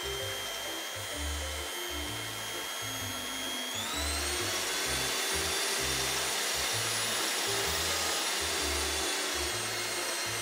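Small electric motor of a toy hand mixer whirring as its beaters spin in batter: a steady high whine that steps up in pitch about four seconds in. Background music plays underneath.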